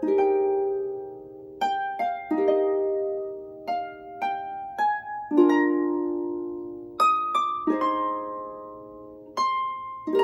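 Lever harp played by hand: a slow Christmas carol of plucked single notes and chords, each note ringing on and fading before the next.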